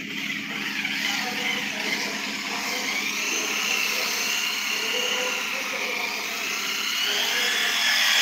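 Small handheld electric polisher running steadily, its foam pad buffing a car's plastic headlight lens. The motor's high whine wavers slightly in pitch over a low hum.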